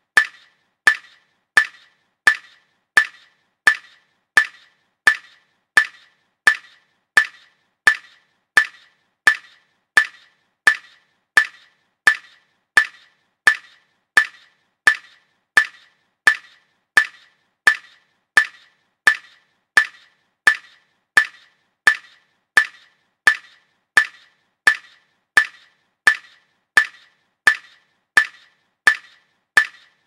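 Metal bat hit repeated at an even pace, about three hits every two seconds, each a sharp crack followed by a short metallic ring.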